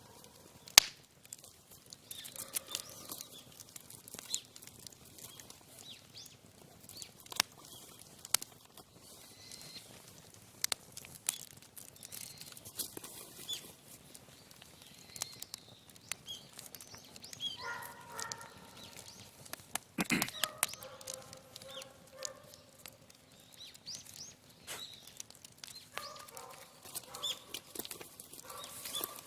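Wood fire crackling, with scattered sharp pops at irregular intervals, the loudest a little under a second in and about twenty seconds in. Faint pitched sounds come and go briefly in the second half.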